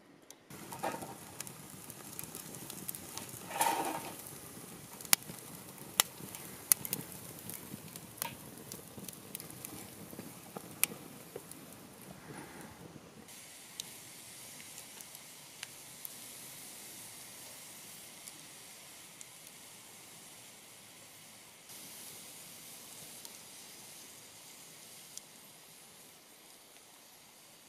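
Wood fire crackling and hissing, with sharp pops of burning wood, most of them in the first half, and a louder burst about four seconds in.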